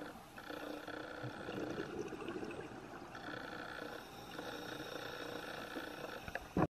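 Faint underwater recording: a low hiss with steady tones that come and go every second or two.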